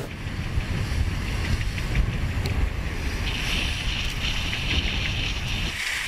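Wind buffeting the microphone aboard a racing sailing yacht under sail, with the hiss and rush of the sea along the hull. The low wind rumble drops away near the end while the hiss continues.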